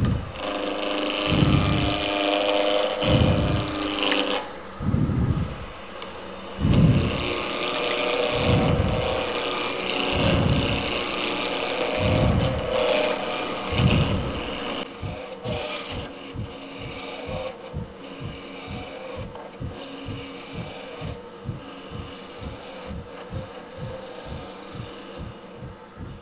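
A spindle roughing gouge cutting a spinning Chakte Viga blank on a vintage Rockwell Delta lathe, a steady rasping cut as the square blank is brought round. Through the first half a low thump comes about every second and a half, with brief pauses in the cut; in the second half the sound turns to quicker, lighter, even ticking about three times a second.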